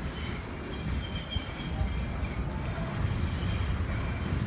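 New York City subway train approaching along elevated track, a steady rumble that grows louder about three seconds in, with thin high wheel squeal over it.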